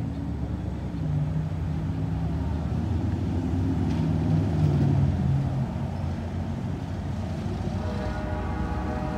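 Low, steady engine rumble of vehicles crossing the tracks, louder a bit past halfway as a car drives through and then a motorcycle. Near the end a steady chord of several tones comes in on top.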